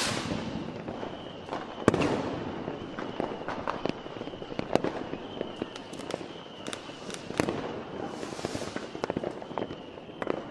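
New Year's Eve fireworks going off: a steady stream of firecracker pops and bangs, the loudest about two seconds in, with a hissing rush at the start and another about eight seconds in.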